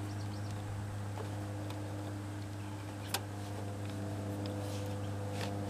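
A steady low hum throughout, with faint ticks and one sharp click about three seconds in as hands bend over a wire on the open generator.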